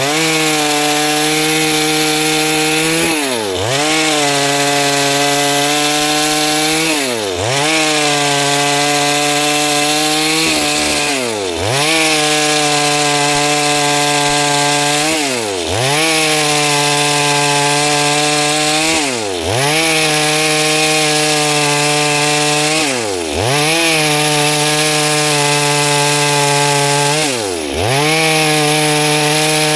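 Two-stroke chainsaw running at high revs while cutting wood. Its engine note dips sharply and climbs back seven times, about every four seconds.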